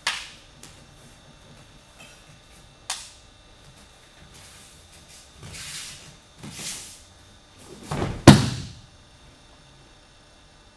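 A judo throw landing: bodies hit the tatami mats hard with a breakfall slap, the loudest thud coming about eight seconds in. Before it there are sharper slaps on the mats at the start and about three seconds in, and some swishing of jackets and feet as the pair close and grip.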